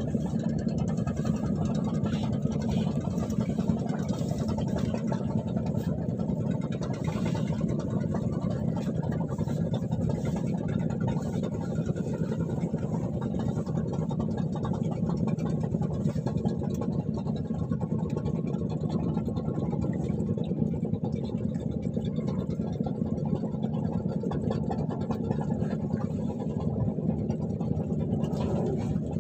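Wind buffeting the microphone: a steady low rumble that flutters rapidly, with no breaks.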